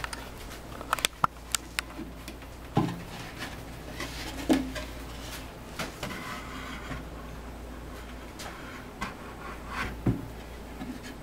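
Wooden hive brood chamber box being handled and set down onto its wooden base: a quick run of light clicks about a second in, then a few dull wooden knocks and some rubbing as the box is shifted into place.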